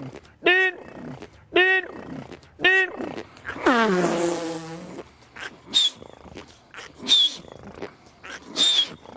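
A man imitating a heavy truck with his voice: three rising-and-falling engine revs about a second apart, then a long falling groan with a hiss, then three short bursts with a high piercing squeal near the end.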